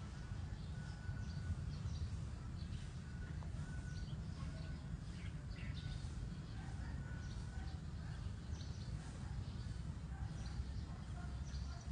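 Outdoor rural ambience: scattered short bird chirps over a steady low rumble.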